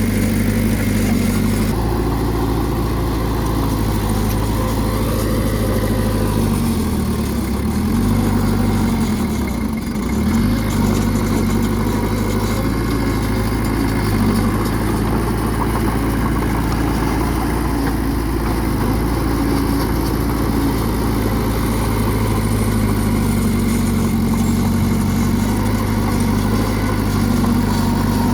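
Bulldozer's diesel engine running steadily. Its pitch dips and recovers twice, about seven and ten seconds in.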